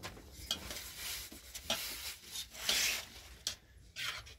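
Irregular scraping and rubbing, a series of short rasping strokes of uneven length, the loudest about three quarters of the way through.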